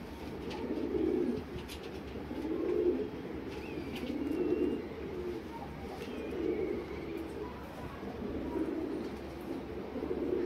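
Domestic pigeons cooing, low rolling coos that repeat every second or two.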